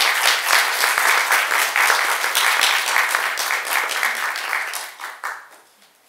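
Audience applauding, a dense patter of many hands clapping that thins out and dies away about five seconds in.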